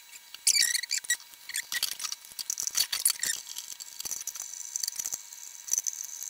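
Fast-forwarded assembly handling: a rapid string of clicks, taps and short high squeaks from screws, metal parts and tools as pinch valves are fastened to a plywood board. A thin high tone sits under it in the second half.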